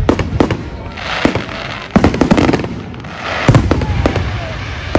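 Fireworks display: a rapid series of sharp bangs with crackling and hissing between them. The heaviest clusters come at the start, about two seconds in, and around three and a half seconds in.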